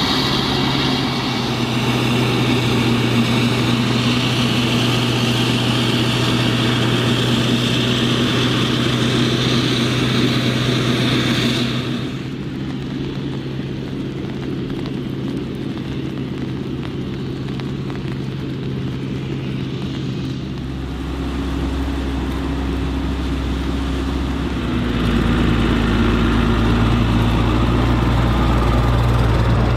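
Fendt tractors pulling powered silage trailers across a harvested maize field, diesel engines running steadily with the rumble of the running gear. The sound drops abruptly to a quieter, distant machine drone about twelve seconds in, then grows loud again near the end as another tractor and trailer come close.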